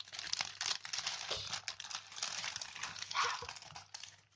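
Clear plastic packaging bags crinkling and rustling as they are handled and pulled open, with many small crackles.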